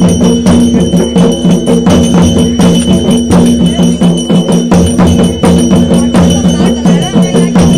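Loud traditional procession music: percussion struck in a quick, steady beat under several sustained, unbroken wind-instrument tones.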